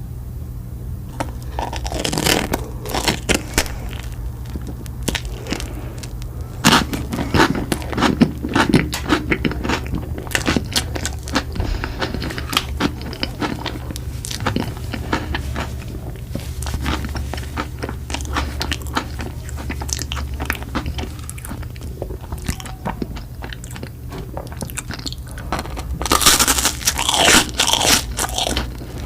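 Close-up crunching bites and chewing of crisp food, many sharp crackles coming in bunches, loudest in three spells.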